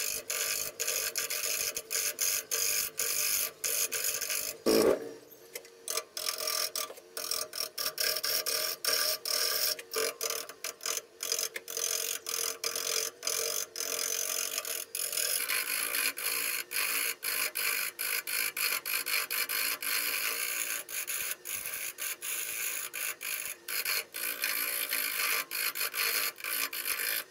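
Turning gouge cutting an out-of-round spalted firewood blank spinning slowly on a Jet 1221 VS wood lathe: a rough scraping hiss that breaks off and bites again many times a second, the interrupted cut of an off-balance, wobbling blank.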